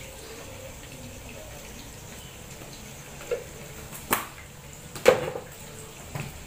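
Stovetop cooking sounds: a steady low hiss with four short, sharp clicks or knocks in the second half, the loudest about five seconds in.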